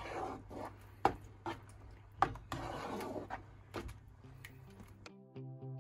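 Spatula stirring and scraping through a creamy mushroom sauce in a nonstick frying pan, with a few sharp knocks of the spatula against the pan, over a low steady hum. Background music comes in near the end.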